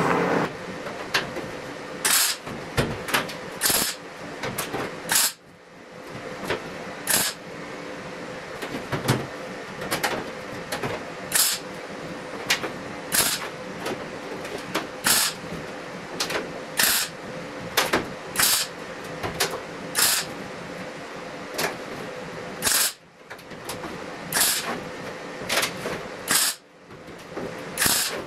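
MIG welder laying a string of short tack welds on sheet-metal roof seams, each a brief crackling burst, one every second or two, over a steady hum.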